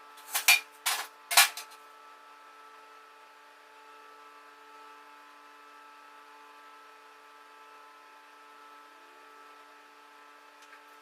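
Three sharp knocks in quick succession, about half a second apart, over a faint steady hum.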